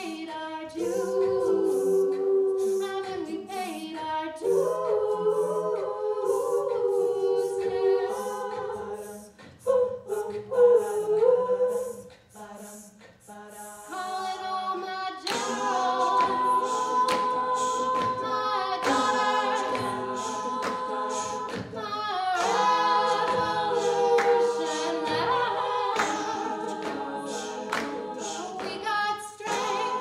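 Women's a cappella group singing, a lead voice over held backing harmonies. The singing drops away briefly about twelve seconds in and comes back fuller about three seconds later.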